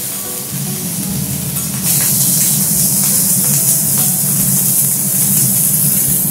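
Rice-coated sea bream and mushrooms sizzling on a hot teppanyaki griddle. The hiss gets much louder about two seconds in, with a few light clicks of utensils on the steel.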